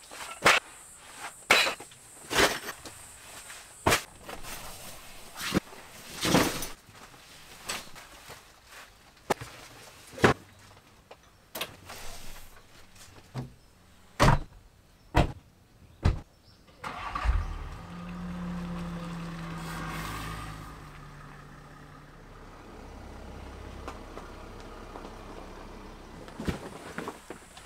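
Heavy bags and cases being set down with a series of sharp thumps and clunks. About two-thirds through, a Land Rover Defender 130's engine starts with a sudden burst and runs steadily, its note dropping lower after a few seconds.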